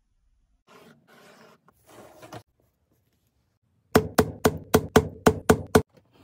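A run of eight quick hammer strikes, about four a second, each with a short ring. They follow soft rustling and scraping from handling the work.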